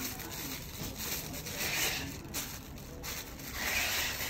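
Rubbing, hissing noise that swells twice, about two seconds apart.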